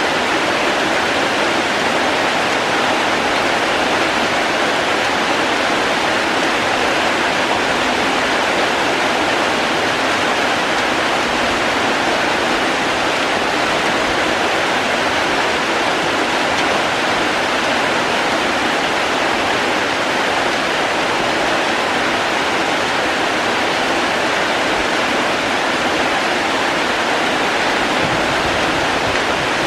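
Steady, unbroken rush of falling water, loud and even throughout.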